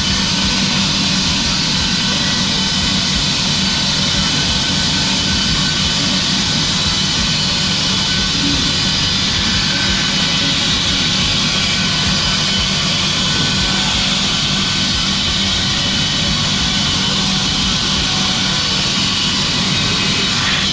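Heavy machinery running steadily: a loud, even mechanical noise with a constant low hum and no pauses or changes.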